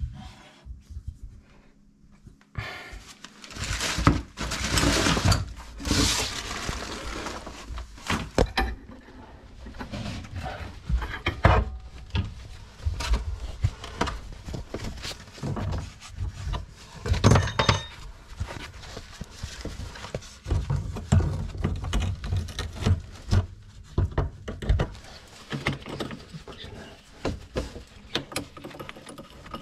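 Irregular knocks, clicks and rattles of objects and tools being handled, with a few seconds of rushing hiss a few seconds in.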